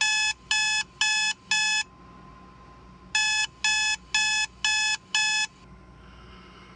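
Electronic alarm beeping: four quick, evenly spaced beeps, a pause of about a second, then five more.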